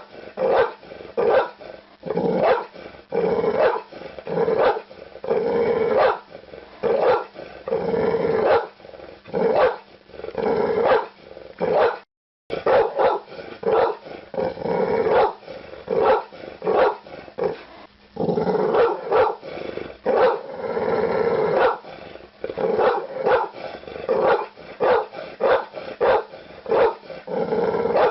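Pit bull barking over and over in quick runs of short barks. The sound cuts out completely for a split second about twelve seconds in.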